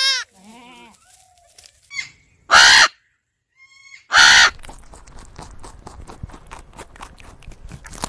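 A goat kid bleats, a wavering cry right at the start followed by a shorter, lower bleat. A red-and-green macaw then gives two loud, harsh squawks, about two and a half and four seconds in. After that come rapid crunching clicks of rabbits chewing hay.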